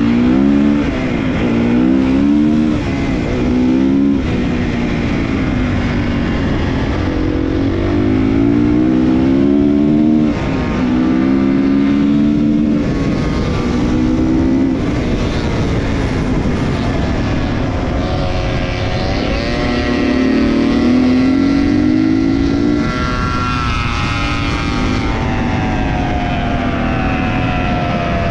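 Dirt bike engine revving up through the gears and dropping back, over and over, as the bike rides along. In the last third, other motorcycle engines are heard rising and falling in pitch.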